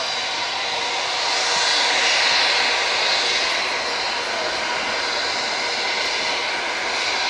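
Boeing 737-400 jet airliner's CFM56 turbofan engines roaring during the landing roll-out. The roar swells about two seconds in, then eases back to a steady level.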